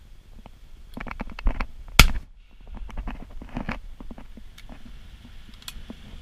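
A single shotgun shot about two seconds in, with quieter clicks and rustles of the gun and hide being moved before and after it.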